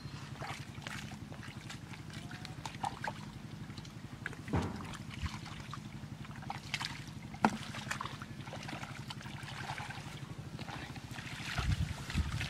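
Hands groping and scooping in shallow mud and muddy water, with squelches, small splashes and a few louder slaps, over a steady, low, rapidly pulsing hum like a small engine running.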